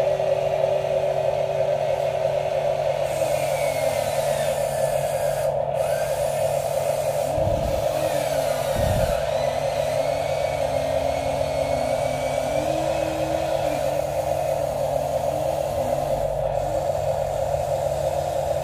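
Small electric motors and plastic gearboxes of radio-controlled toy construction vehicles whining steadily. Their pitch slides and steps up and down as the machines work and change speed, with two brief low thumps about seven and nine seconds in.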